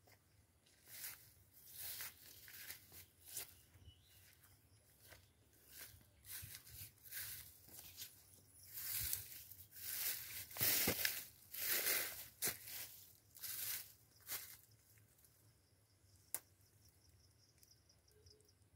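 Dry grass and straw mulch crunching and rustling underfoot in irregular bursts, loudest in the middle, then a single sharp click near the end.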